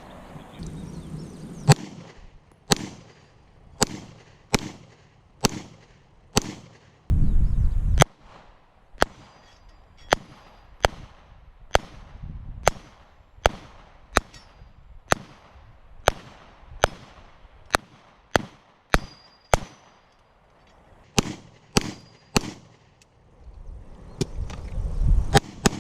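A long string of handgun shots, about one every second, each a sharp crack with a short echo. A brief low rumble sounds about seven seconds in.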